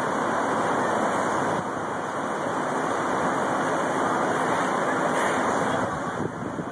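The four turboprop engines of the C-130 Hercules known as Fat Albert, at takeoff power during its takeoff run, make a loud, steady roar. The roar eases slightly near the end.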